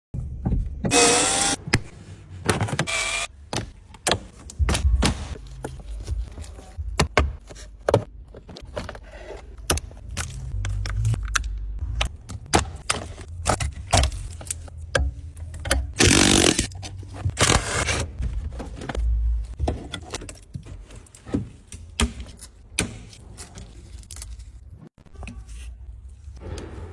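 Hand tools clinking, knocking and scraping during a car tyre puncture repair. Four short rushes of noise stand out: about a second in, near three seconds, and two close together about two-thirds of the way through.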